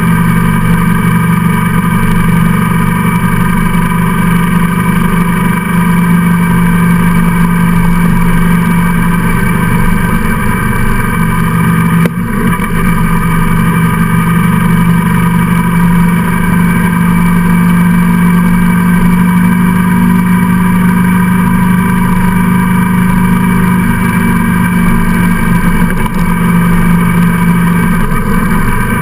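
Motorcycle engine running steadily at cruising speed, with wind rush, heard from behind the windshield; the sound dips briefly about twelve seconds in.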